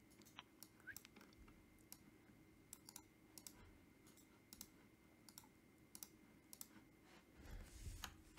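Faint, irregular clicking of a computer mouse and keys as text is selected and copied, over a faint steady electrical hum.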